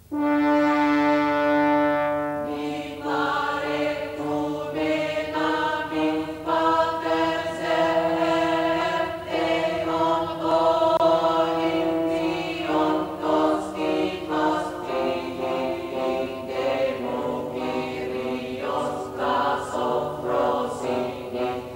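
A choir singing slow, sustained chords, starting suddenly; the first chord is held for about two seconds, then the chords change every second or two.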